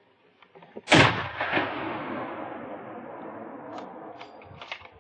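A single gunshot about a second in, followed by a long echo that fades over about three seconds.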